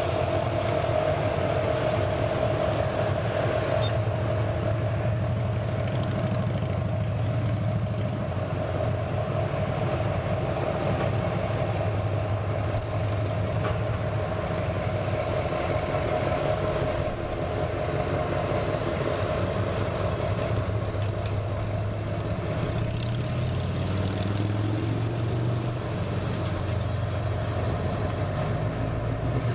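A motor vehicle engine running steadily: a constant low drone with a mid-pitched hum above it, its pitch shifting a little partway through.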